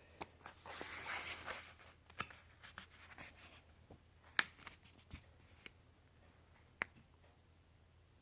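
Paper pages of a coloring book being turned and handled: a short papery rustle about a second in, then a few scattered sharp clicks and taps, the loudest about four seconds in.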